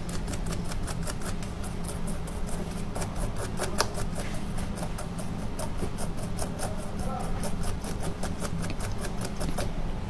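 Stiff brush scrubbing rapidly back and forth over a phone's earpiece speaker grille, making a rhythmic scratching of several strokes a second as it works dust out of the clogged mesh.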